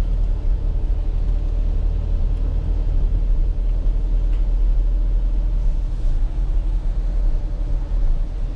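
Turbocharged van engine and road noise heard from inside the cab while driving, a steady low rumble.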